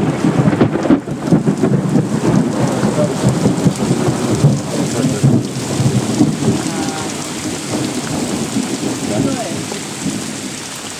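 Thunderstorm over the sea: heavy rain pouring down with a rolling rumble of thunder, the whole slowly easing off over the second half.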